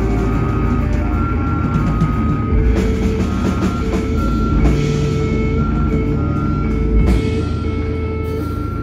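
Live rock band playing: electric guitar, keyboard and drum kit, with a repeating pattern of short high notes over the drums.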